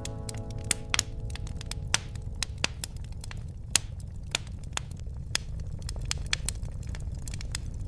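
Wood fire crackling in a fireplace: irregular sharp pops and snaps, a few of them louder, over a low steady rumble of the flames.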